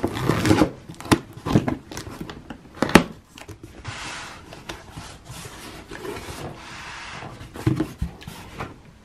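Cardboard box being opened: the packing tape along the seam is slit and the flaps are pulled apart. A few sharp clicks and knocks in the first three seconds, then a longer rustling scrape of cardboard, and more knocks near the end as the flaps fold back.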